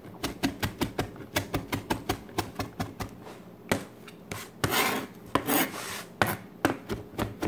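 Kitchen knife rapidly chopping fresh parsley on a plastic cutting board, about five quick taps a second. A little past the middle come a couple of longer scraping sounds.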